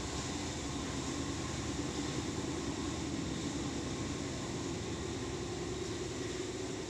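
Steady rushing background noise with a faint low hum, even throughout with no distinct knocks or voices.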